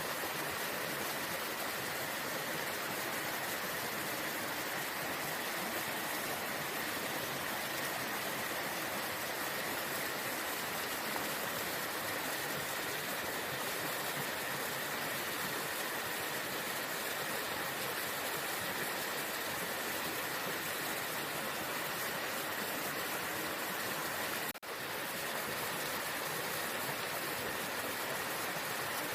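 Waterfall: steady rushing water, an even, unchanging hiss that dips for an instant near the end.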